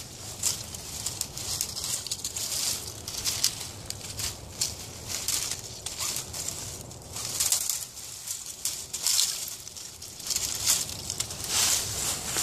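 Dry twigs and brush crackling and snapping as a plastic disc golf disc is worked loose by hand from a dense thicket, getting busier near the end as it comes free.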